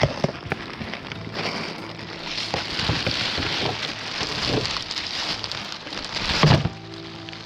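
Heavy rain falling close to the microphone, a dense hiss with many irregular taps of drops, and one louder thump about six and a half seconds in.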